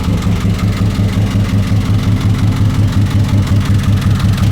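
A 1999 Honda Odyssey's V6 engine running at idle with an even, rhythmic tapping from inside the engine, which the mechanic takes for an engine problem rather than a transmission fault.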